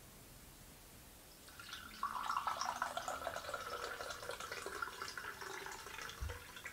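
Milk poured from a carton into a glass, a steady splashing stream starting about two seconds in, its pitch sliding lower as the glass fills.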